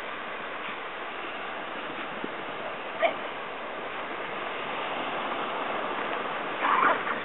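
A ratting dog yelping twice: one short, sharp yelp about three seconds in and a louder, half-second yelp near the end, over a steady rushing noise.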